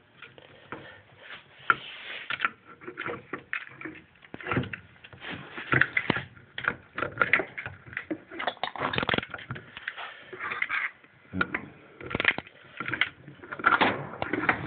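Hand tools working on a motorcycle fork tube: irregular metallic clicks, knocks and scrapes as an Allen socket is turned against the bolt in the bottom of the fork tube while the damper rod is held from inside.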